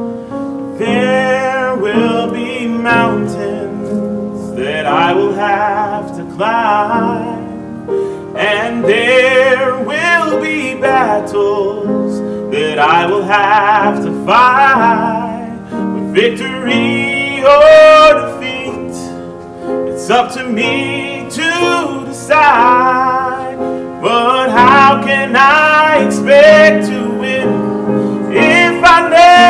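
Gospel singing with a wide vibrato, long held and sliding notes, over piano accompaniment.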